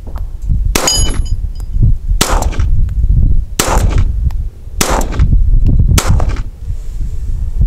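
Five .22 LR pistol shots from a Ruger Mark IV 22/45, fired at a steady pace about a second and a quarter apart. The first shot is followed by a brief metallic ring from a steel target being hit.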